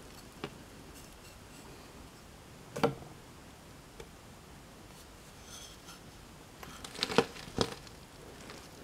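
Flat slate stone knocking and pressing down on a pomegranate as it crushes the fruit: a few scattered short knocks, one about three seconds in and a quick cluster of three near the end.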